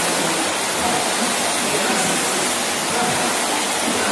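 Steady wash of splashing water from many people exercising in an indoor swimming pool.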